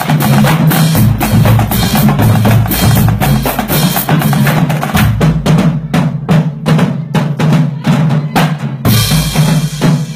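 Marching drumline playing: snare drums rattling out fast patterns over pitched bass drums, with hand cymbals. A big cymbal crash comes about nine seconds in.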